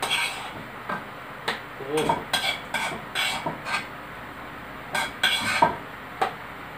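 A metal spoon scraping and clinking in a metal wok and against a plate as cooked food is scooped out and served, in irregular short clinks and scrapes.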